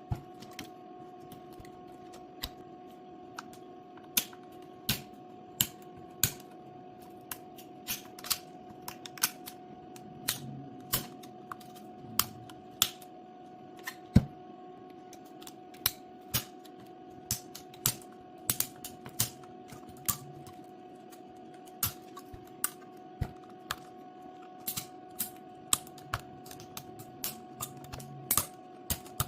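Irregular sharp clicks and taps, about one or two a second, from the parts of a Milwaukee power-tool battery pack being handled and worked on, over a steady electrical hum.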